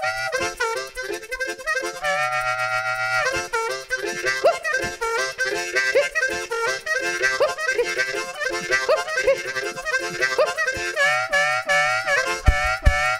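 Fast harmonica music with bent, sliding notes over a steady rhythm, and a few deep thumps near the end.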